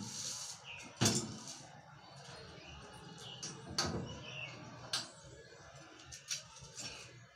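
Small steel cabinet door shut on a dressing table, with a sharp knock about a second in, then a few lighter knocks and clicks as the cabinet is handled. Birds chirp now and then in the background.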